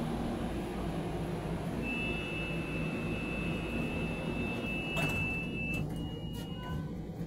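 Inside a metro train car stopped at a station platform: a low steady rumble of the train, and a steady high electronic door-warning tone that sounds for about four seconds from about two seconds in, followed by a sharp click and a few lighter knocks of the sliding doors.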